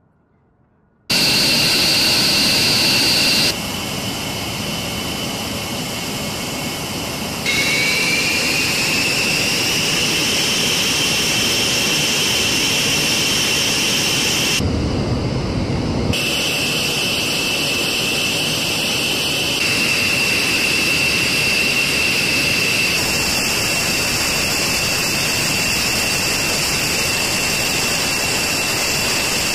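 After a second of near silence, B-1B Lancer jet engines (GE F101 afterburning turbofans) run on the ground: a loud, steady turbine whine with high tones over a rush of noise. The whine rises in pitch for a couple of seconds, about eight seconds in, as the engines spool up. The sound changes abruptly several times.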